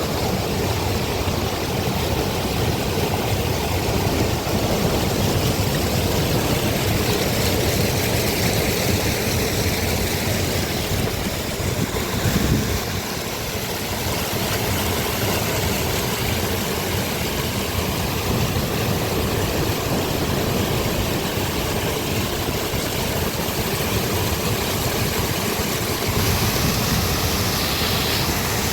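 Heavy rain and rushing floodwater, a dense, even hiss with a brief thump about twelve seconds in.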